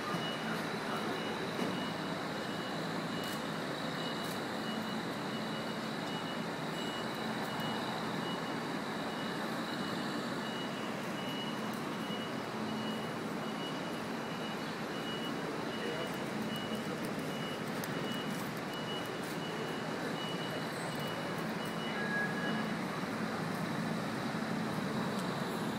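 City street traffic noise, steady throughout, with a high electronic beep repeating at an even pace until it stops near the end.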